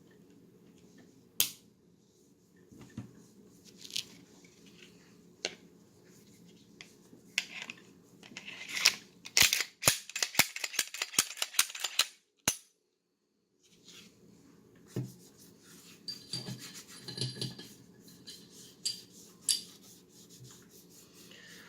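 Sharp clicks and rubbing of a Glock 23/32 pistol's parts being handled and fitted back together, with a quick run of about a dozen clicks partway through.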